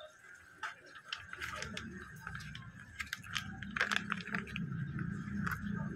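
Small clear plastic parts bag crinkling and crackling as it is handled and opened, in irregular bursts of crackles, with a low rumble underneath from about a second in.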